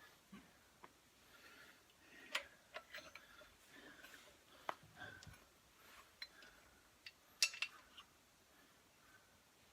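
Lug nuts clinking against the wheel spacer and studs as they are threaded on by hand: a few scattered, sharp metal clicks, the loudest about two and a half and seven and a half seconds in.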